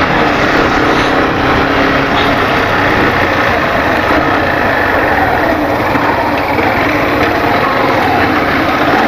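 Yamaha Factor 150's single-cylinder engine running while riding, under a steady rush of wind noise over the camera microphone.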